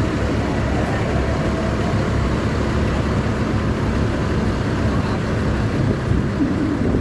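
Large bus engine running close by, a steady low rumble.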